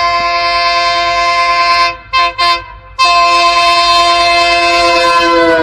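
Train horn sounding a loud chord of several notes: a long blast, then two short toots about two seconds in, then another long blast whose pitch starts to fall near the end as the train passes.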